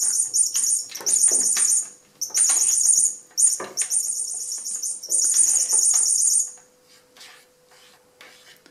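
Electronic chirping from a battery-powered toy bird cat toy, set off as the kitten bats it: rapid high chirps in repeated bursts that stop about two seconds before the end. Light taps of the toy against the cabinet door come with the chirps.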